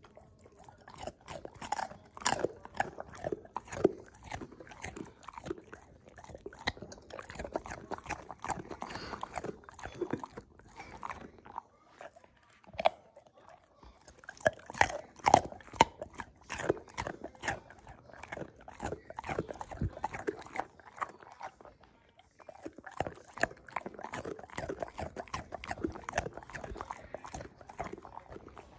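A dog chewing a chunk of carrot: rapid runs of crunches, pausing briefly about eleven and again about twenty-two seconds in.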